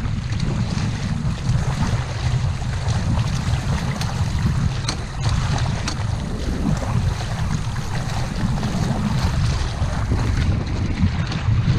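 Strong wind buffeting the camera's microphone in a steady low rumble, with water splashing and lapping around a small boat in choppy water.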